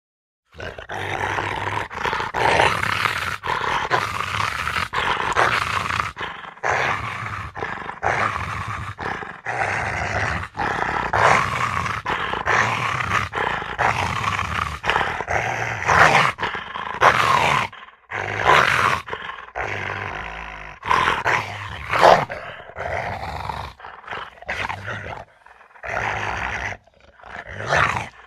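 An animal growling: long, rough growls broken by frequent short gaps.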